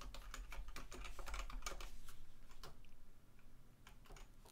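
Typing on a computer keyboard: quiet, irregular keystrokes, busiest in the first three seconds and thinning out toward the end.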